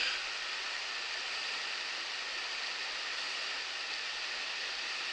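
Shallow river riffle: water running over rocks in a steady, even rush.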